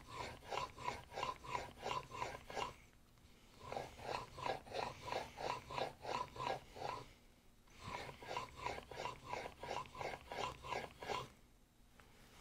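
Steel plane blade in a honing guide rubbed back and forth on an 8000-grit waterstone, about three strokes a second in three runs with short pauses between. The extra strokes bear on either side of the edge to put a slight camber across the smoothing-plane blade.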